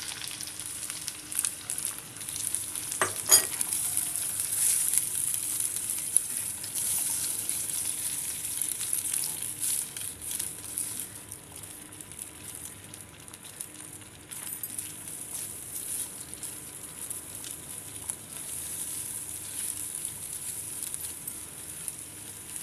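Beaten eggs sizzling in hot oil in a nonstick pan, stirred and scrambled with a silicone spatula. One sharp knock about three seconds in; the sizzle eases a little for a few seconds past the middle.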